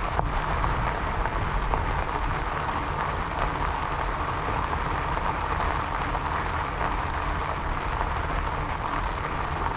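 Steady noise of a bicycle being ridden on a gravel trail: tyres rolling over loose gravel, with wind rumbling on the microphone.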